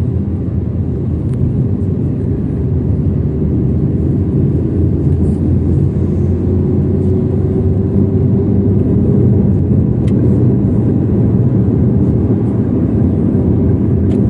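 Steady low rumble of engine and tyre road noise, heard inside a moving car's cabin, with a faint engine hum rising slightly in pitch midway.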